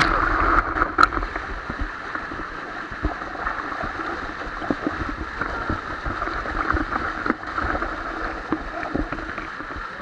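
Waterfall cascade rushing and splashing over rocks close to the microphone, louder for the first two seconds while water hits the lens, then steady. There is one sharp knock about a second in.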